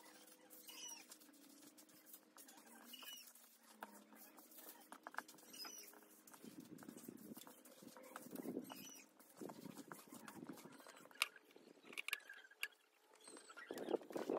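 Straw broom sweeping stone stairs: faint, repeated scratchy brushing strokes, with heavier strokes in the middle.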